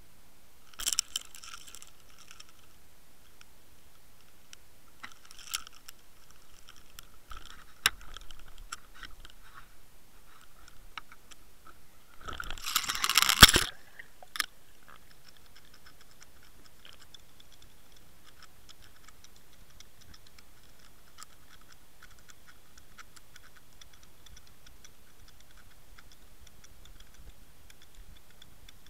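Sound picked up by a camera on a fishing rig: scattered knocks and rattles, then a loud rushing splash with bubbling about 12 to 14 seconds in as it goes into the sea. This is followed by faint, fast, steady ticking while it sinks.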